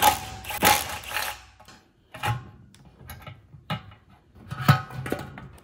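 Irregular clicks, knocks and rubbing of parts as the fuel pump is unhooked on a North Star E420 EFI small engine. A few sharp knocks stand out, the loudest near the end.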